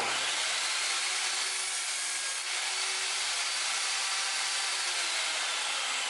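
Lotus LTST1800X table saw cutting wood: the steady high whine of the blade and motor mixed with the noise of the cut, starting abruptly.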